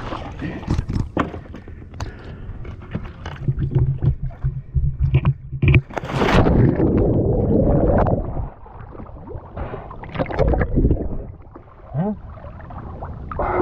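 A swimmer in fins jumps from a sailboat's stern into the sea: a splash about six seconds in, followed by two seconds of loud rushing water as the camera goes under. Then quieter water sloshing around the camera at the surface. Before the jump, wind on the microphone and a few light knocks.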